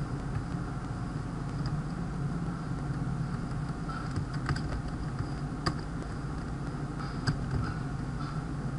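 A few separate computer keyboard keystrokes, scattered clicks while code is typed, over a steady low hum.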